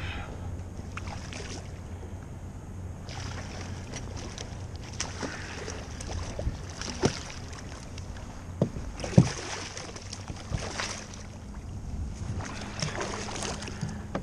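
Water splashing as a hooked striped bass thrashes at the surface beside a kayak, with several sharp knocks, the loudest about nine seconds in. Low wind rumble on the microphone runs underneath.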